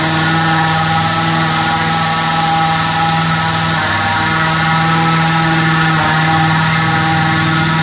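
Truck-mounted ULV fogging machine running: its air-cooled petrol engine holds a steady drone under a strong steady high hiss, with brief slight dips in pitch twice.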